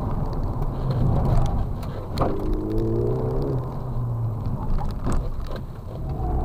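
Car engine and tyre noise heard from inside the cabin during a fast run through a cone course: the engine rises in pitch as the car accelerates out of a turn, over steady road rumble. Two sharp knocks, about two and about five seconds in.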